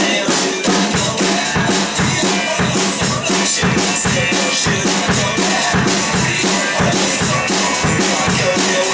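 Music led by a drum kit playing a steady, fast beat on bass drum and snare, with other instruments underneath.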